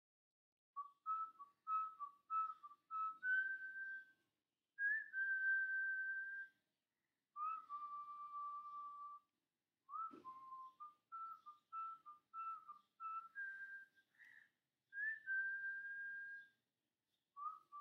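A whistled melody, a single clear tone without accompaniment, in phrases of short quick notes and longer held notes with brief pauses between phrases.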